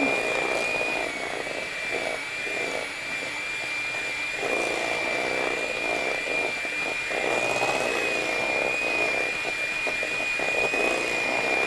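Electric hand mixer running steadily, its beaters churning a creamed butter, sugar, egg and sour-cream batter in a metal bowl, with a constant high motor whine over a rough churning noise that swells and eases.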